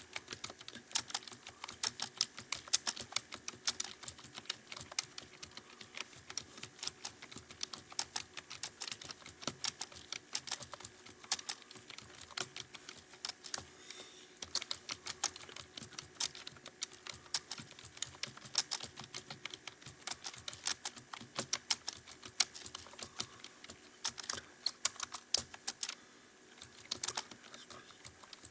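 Fast touch-typing on a computer keyboard: a rapid, uneven stream of key clicks, several a second, without a break.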